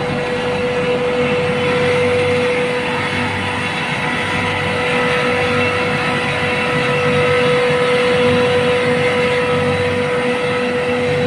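Trane chiller compressor running with a loud, steady machine noise and one constant hum riding over it. This is the noise on the compressor's discharge valve side that the uploader calls abnormal and ties to gas bypassing.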